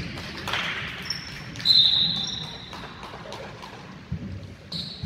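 Basketball being dribbled and bounced on a hardwood gym floor, with rubber sneaker soles squeaking on the boards in several high squeals. The longest and loudest squeal comes about a second and a half in.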